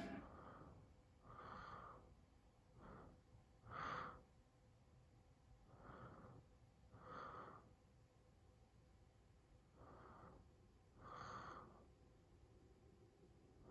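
Faint breathing: soft puffs of breath every second or two, often in pairs.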